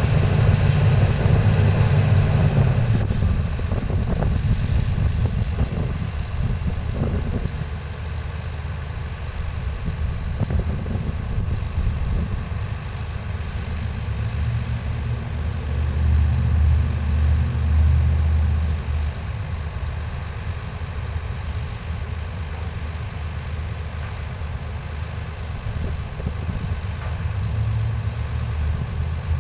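Komatsu hydraulic excavator's diesel engine running steadily, growing louder for a few seconds about halfway through, with a few faint knocks.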